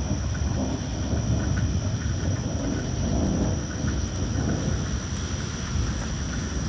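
Low, steady rumble of thunder with rain falling, with no sharp crack.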